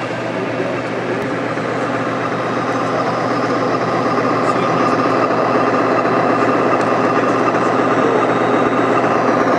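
Diesel engine sound from a G scale Union Pacific model locomotive's onboard sound system as it runs past, a steady drone that grows slowly louder.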